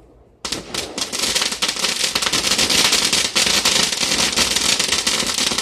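Ground fountain firework, quiet at first, then about half a second in it suddenly breaks into a loud, dense, continuous crackle of rapid pops: its crackling stage.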